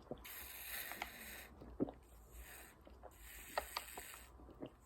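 Faint, irregular clicks and light handling noise: a few sharp ticks spread unevenly over several seconds.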